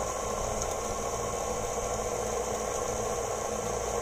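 KitchenAid Artisan stand mixer running steadily at a constant speed, its motor and beater working cookie dough in the steel bowl.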